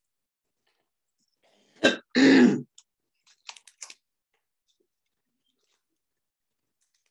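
A woman's single loud cough about two seconds in, just after a sharp click, followed by a few faint clicks.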